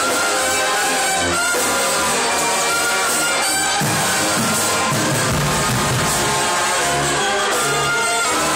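Marching band playing loudly: brass sustaining chords over a steady beat of low drum hits.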